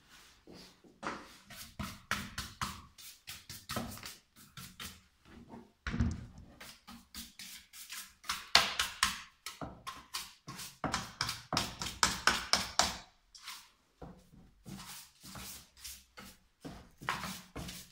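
A stiff brush scrubbing sawdust off the plastic housing and bar of a Husqvarna 418 EL electric chainsaw, in quick runs of short scraping strokes, several a second, with brief pauses between runs.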